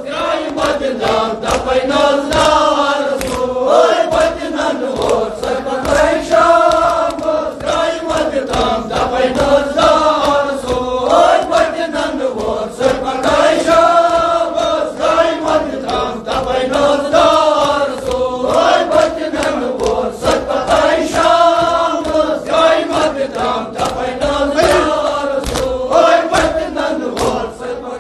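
A group of men chanting a Kashmiri marsiya (Shia lament) in unison, the phrases rising and falling in a repeating arc about every two seconds. Sharp slaps of hands beating on chests (matam) run through the chant.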